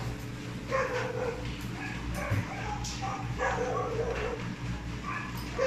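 Dog whining and yipping, several short pitched cries with the longest lasting about a second.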